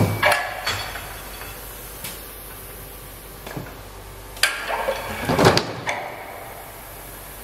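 Scattered knocks, with a denser clattering run of knocks about four and a half to six seconds in.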